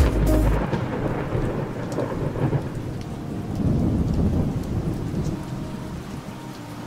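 Recorded thunderstorm: rolling thunder over steady rain. The rumble swells about halfway through and then fades away toward the end.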